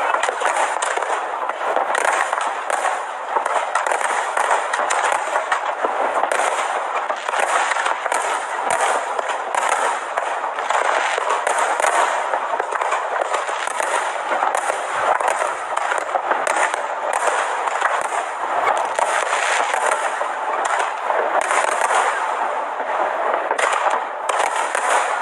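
Fireworks display: a rapid, continuous stream of crackling bangs with no pause.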